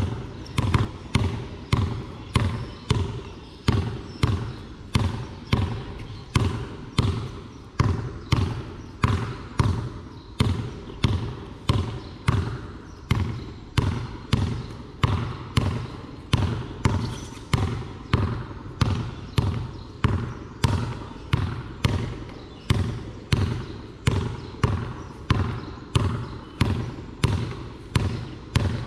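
A basketball dribbled continuously on a concrete court: sharp bounces in a steady, even rhythm.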